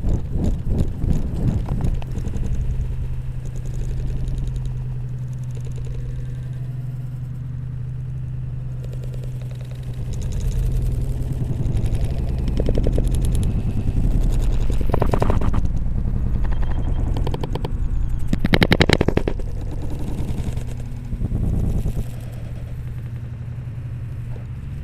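Rapid rattling and knocking from a GoPro strapped to a running dog's back, jostled with each stride, over a steady low hum. It gets louder in two short stretches in the second half.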